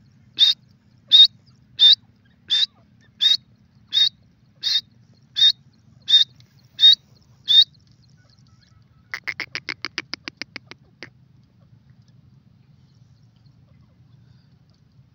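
Grey francolin calling: a series of eleven loud, high, evenly spaced notes about two-thirds of a second apart. About a second and a half after the last one comes a quicker, quieter run of short clicking notes, roughly eight a second, lasting about two seconds.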